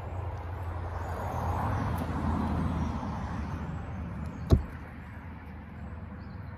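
A vehicle passing, its rushing noise swelling and then fading over the first three seconds. About four and a half seconds in comes a single sharp knock as a dog bumps the camera.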